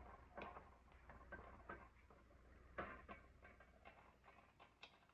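Faint, soft taps and scrapes of a wooden spoon stirring cooked cabbage in a pot, a few irregular knocks, the clearest about three seconds in.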